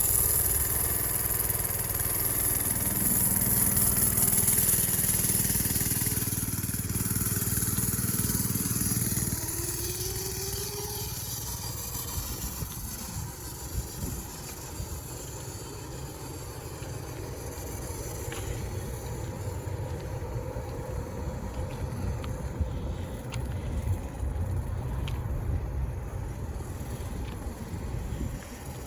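X1 pocket bike's small engine running while it is ridden: a steady engine note for the first several seconds, rising in pitch about ten seconds in, then running on at a lower, rougher level.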